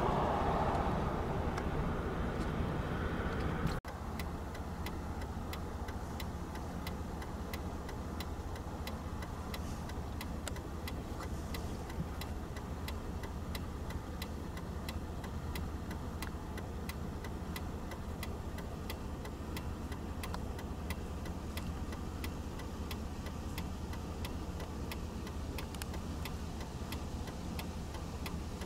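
Car running: louder road noise for the first few seconds, which breaks off sharply about four seconds in, then a steady low engine hum with a regular ticking.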